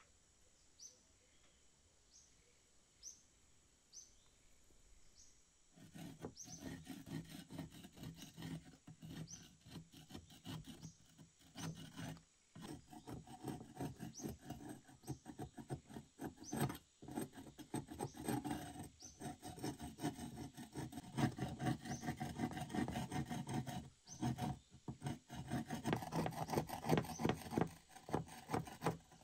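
A flat steel blade scraping thick rust off an old iron horseshoe in quick, rough strokes. It starts about six seconds in and goes on with a few short breaks.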